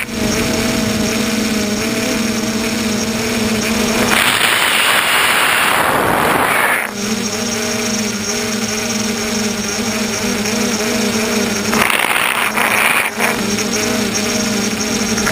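FPV tricopter's electric motors and propellers humming steadily in flight. A loud rushing noise drowns the hum for about three seconds from about four seconds in, and again briefly near twelve seconds.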